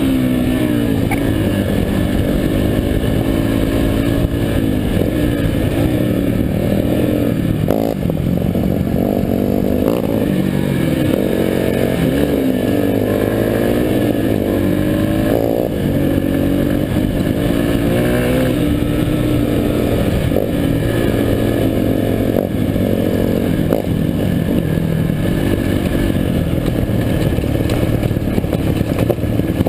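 Four-stroke Yamaha dirt bike engine running close up, its pitch rising and falling again and again as the throttle opens and closes.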